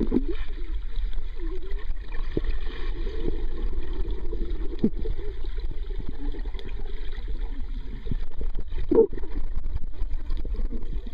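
Muffled underwater sound of pool water heard by a submerged waterproof camera: a steady low rumble and gurgling of water moving against the camera, with swimmers' movement stirring it. A louder swish comes about nine seconds in.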